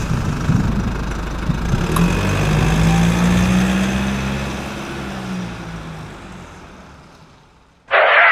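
Tractor engine sound running steady with a slight rise and fall in pitch, fading away over the last few seconds. It is laid over a die-cast toy tractor that has no engine of its own. Music cuts in abruptly at the very end.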